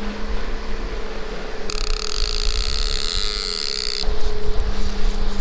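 Boat engine running steadily with a low rumble underneath. About two seconds in, a loud high-pitched hiss starts abruptly and cuts off just as suddenly about two seconds later.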